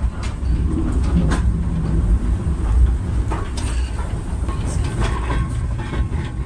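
Vintage railway carriage rolling along the track, heard from its open end platform: a steady low rumble of the wheels with irregular clacks and rattles.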